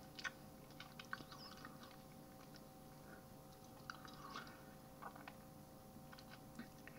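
Near silence: quiet room tone with a faint steady hum and scattered small clicks.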